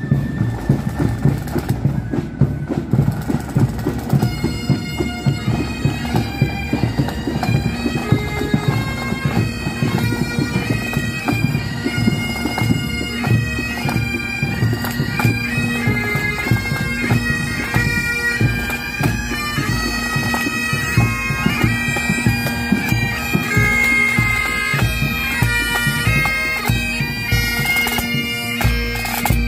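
Pipe band playing: Highland bagpipes, a steady drone under a shifting melody, over snare and bass drums. The drums are heard first, and the pipes come in strongly about four seconds in.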